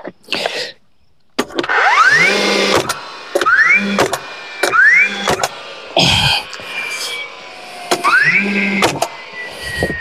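Cordless nailer driving nails: about four times its motor whines up in pitch and then fires with a sharp crack. Near the end the whine falls slowly away.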